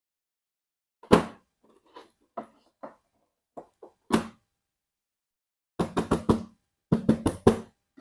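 Plastic toys and packaging being handled: a string of sharp knocks and taps, ending in two quick runs of about four knocks each.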